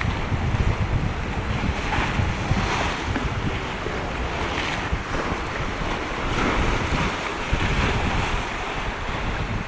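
Strong gusty wind buffeting the microphone with a heavy low rumble, over the wash of waves that swells every couple of seconds.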